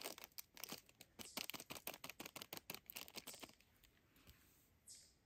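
Plastic wrapper of a Mr. Noodles instant noodle packet crinkling and tearing in a quick run of crackles, which stop about three and a half seconds in, with a couple of softer rustles near the end.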